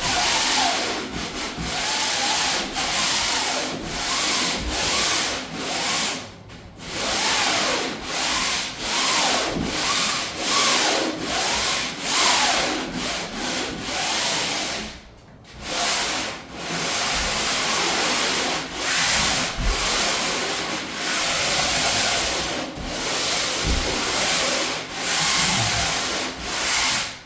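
Sandpaper rubbed by hand over painted plywood in repeated back-and-forth strokes, a scratchy rasp with faint squeaks, pausing briefly twice. It is a light scuff-sanding of the first coat of paint/primer to smooth the surface for the second coat.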